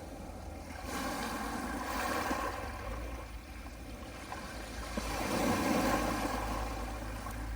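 Small sea waves washing onto a pebble beach, two waves breaking and running up in turn, over a steady low rumble.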